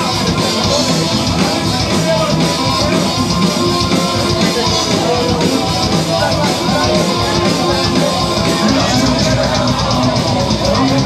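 Loud live rock band playing: electric guitars, drum kit and keyboards, with a vocalist singing into the microphone.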